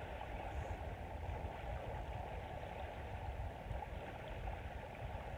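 Steady rushing noise of small surf washing onto a sandy beach.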